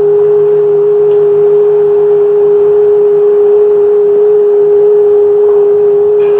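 Loud, unbroken electronic drone held on one steady pitch, with a fainter higher tone above it.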